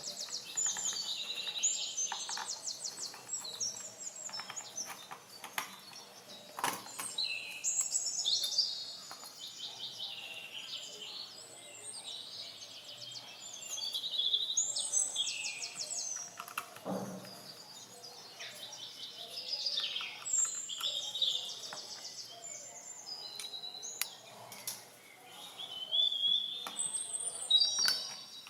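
Songbirds singing in repeated high trills and warbling phrases. A few sharp knocks fall among them, one about seven seconds in and another about seventeen seconds in.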